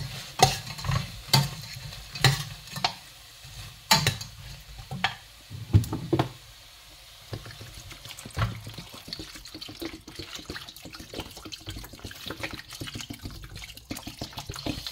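Shrimp sizzling in a hot stainless steel pot while a metal ladle stirs them, knocking sharply against the pot every second or so. About seven seconds in, the knocking stops and water poured from a plastic bottle runs steadily into the pot.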